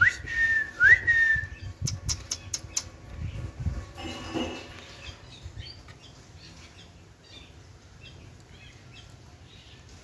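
Two whistled notes from the parakeets, each a quick upward swoop that levels off and falls slightly, about a second apart. Then a quick run of about five sharp clicks of a beak knocking on the plastic feeding cup, followed by faint soft chirps.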